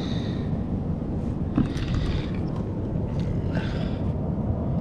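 Steady low rumble of wind buffeting the microphone, with a sharp click about a third of the way in and light rattling of fishing tackle being handled in an opened tackle box.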